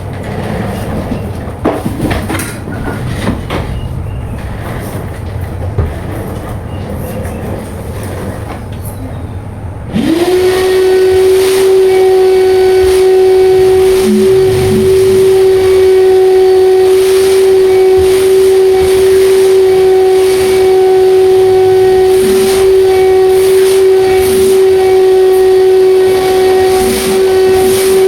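Light clicks and knocks, then about ten seconds in a wet vacuum cleaner is switched on: its motor spins up within a moment to a loud, steady whine.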